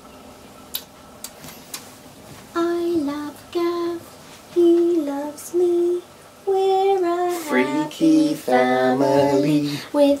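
A woman singing a short tune in repeated two-note falling phrases. A man's lower voice joins in for the last couple of seconds.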